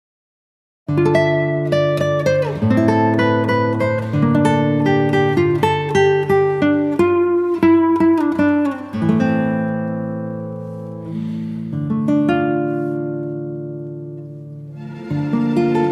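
Background music of plucked acoustic guitar picking out notes and chords, starting about a second in after a moment of dead silence.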